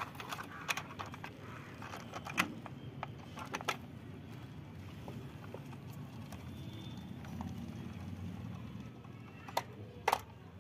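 Plastic toy truck being handled and set down onto a wooden loading board: scattered light clicks and knocks of hard plastic, a few sharper ones near the end.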